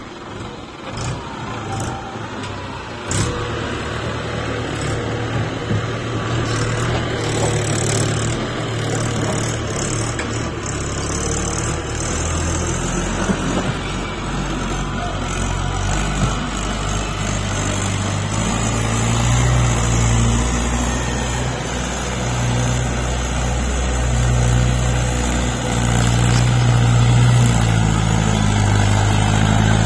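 Diesel farm tractor engine running under load as it pulls a loaded trailer, a steady low throb that grows louder as it draws closer. A few knocks sound near the start.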